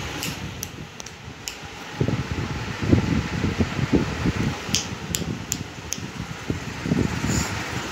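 Steady fan-like whirring room noise, with irregular low thuds through the middle and a few short light clicks near the start and about five seconds in.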